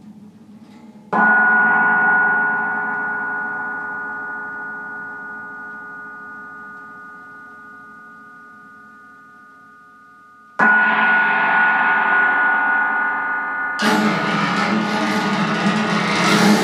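Cymbal struck with a soft mallet, giving a gong-like ring of steady high tones that fades slowly over about nine seconds, then struck again. About three seconds before the end, a dense rattling clatter of hanging wooden chimes comes in over the ringing.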